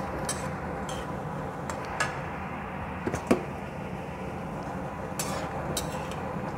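Metal slotted spoon scraping and clinking against a metal kadhai while almonds and cashews are stirred in ghee, with scattered short clinks, the sharpest about three seconds in.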